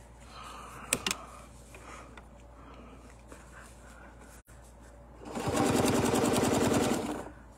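Sewing machine stitching steadily for about two seconds near the end, sewing a straight line of ruler-guided quilting. A couple of sharp clicks come about a second in.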